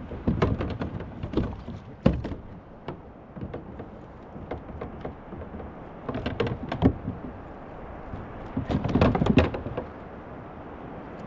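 Knocks and thumps on a fishing kayak's hull, in three clusters: at the start, about six seconds in, and around nine seconds in.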